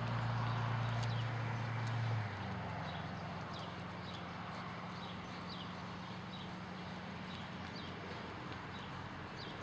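Quarter Horse gelding's hooves clip-clopping in a steady, regular rhythm. A steady low hum runs underneath and drops lower and quieter about two seconds in.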